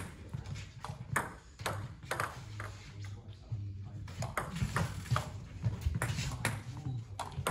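Table tennis ball ticking sharply off the bats and the table in a rally, an irregular string of quick clicks, some close together in pairs. A low steady hum runs underneath.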